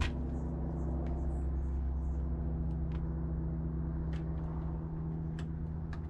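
Steady low machine hum with even overtones from running rooftop HVAC equipment, with a few light clicks from handling along the way.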